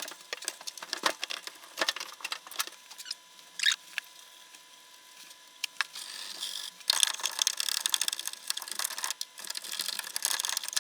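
Plastic washing-machine parts being handled: scattered clicks and light knocks, then a denser run of scraping and rustling from about seven seconds in.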